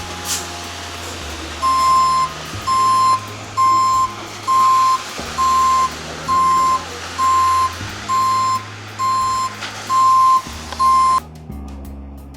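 Concrete mixer truck backing in, its reversal alarm beeping about once a second over the running engine; the beeps stop abruptly near the end.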